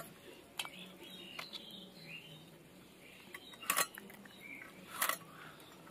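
Small crab shells cracking as they are sliced against a boti, the upright curved cutting blade. A few sharp crunches, the loudest about three and a half and five seconds in.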